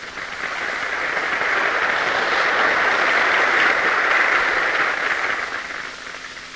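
Applause from a large crowd at an open-air rally, on a 1942 recording. It builds over the first couple of seconds, peaks midway and dies away near the end.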